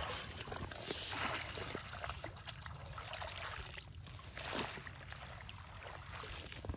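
Shallow marsh water sloshing and splashing as legs wade through it and a woven bamboo basket is pushed through the water and weeds, with a few short, louder swishes: near the start, about a second in, and again past the middle.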